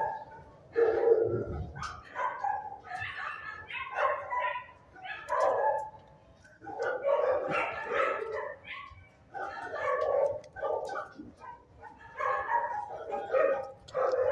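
Dogs barking in an animal shelter's kennel room, bark after bark with only brief pauses.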